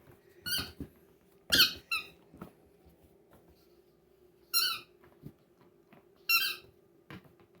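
A dog squeezing a squeaky toy in its mouth, making five short high squeaks: one, then a quick pair, then two more spaced a couple of seconds apart.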